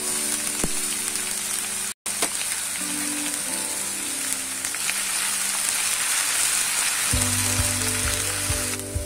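Chopped onions and ginger-garlic paste sizzling steadily as they fry in hot refined oil in a kadhai, with a brief break in the sound about two seconds in.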